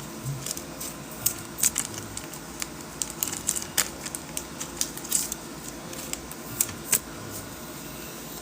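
Football trading cards being handled and flipped through by hand: light, irregular clicks and rustles of card stock, spaced unevenly across the stretch.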